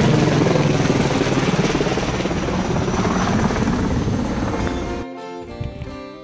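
Helicopter flying low overhead, a loud, steady rotor and engine noise that eases slightly over about five seconds. It then cuts off suddenly to plucked guitar music.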